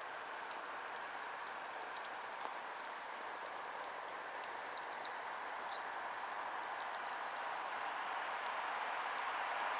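Distant approaching EU07 electric locomotive and its passenger coaches running on the rails, a steady far-off rush of noise that slowly grows louder. About halfway through, a bird twitters in high chirps for a few seconds.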